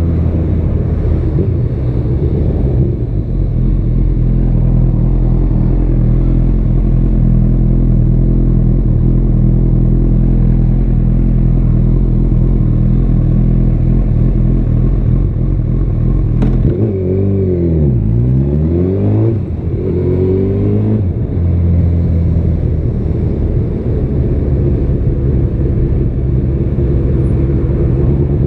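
Honda CB1000R's inline-four with a Yoshimura R-77 exhaust running steadily under way. About 17 s in, the revs fall and then climb again over a few seconds, after a single sharp click.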